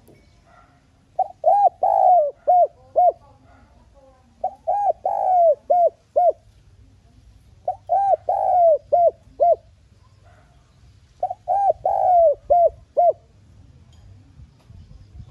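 Spotted dove cooing its song: four phrases, each a run of several arched coo notes lasting about two seconds, repeated every three to four seconds.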